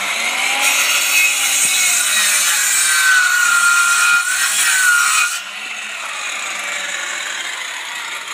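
Handheld circular saw cutting through timber guided along a roofing square, with a whining blade. After about five seconds the sound drops to a lower, steadier level.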